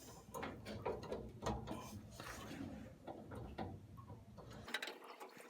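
Faint, irregular small clicks and taps of hands working on wiring and connectors while a replacement blower-motor run capacitor is fitted in the furnace.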